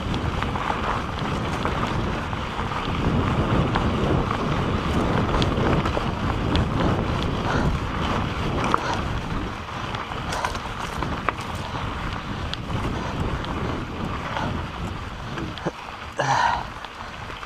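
Wind rushing over the camera microphone on a fast mountain-bike descent, with tyres crunching over a rocky dirt trail and the bike rattling in many small clicks and knocks. A brief louder sound comes near the end.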